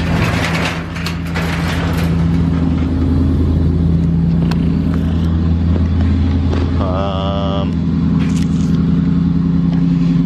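Dodge Ram pickup's engine idling steadily, with some clattering in the first couple of seconds and a short squeak about seven seconds in.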